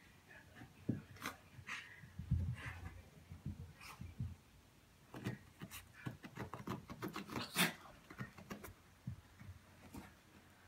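A Chiweenie (Chihuahua–dachshund mix) rolling and rubbing itself along a carpet to dry off after a bath: irregular scuffing and rustling of fur on carpet with soft thumps as it flops about.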